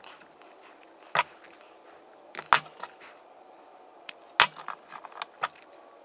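Sharp clicks and small metallic clinks from hand-held wire cutters and a wiring connector being worked by hand, five or so scattered through, with light rustling of wires between them.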